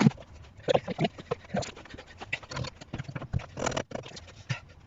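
Irregular knocks, taps and scrapes of tools and metal parts being handled while the rear suspension swing arm is fitted.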